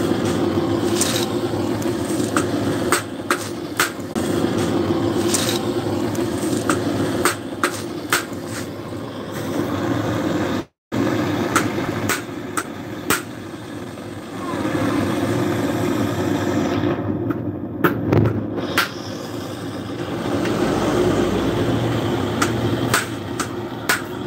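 Screwdriver clicking, tapping and scraping on a dismantled car alternator's metal housing, over a steady mechanical drone, with a brief dropout near the middle.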